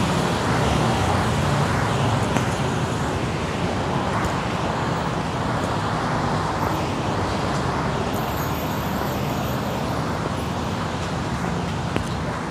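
Steady city road traffic: cars and other vehicles running along a busy street, a continuous even rumble that eases slightly toward the end.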